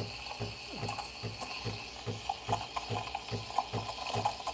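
Breville Barista Pro steam wand steaming milk in a stainless pitcher, with milk nearly done: a steady hiss over low pulses about three times a second.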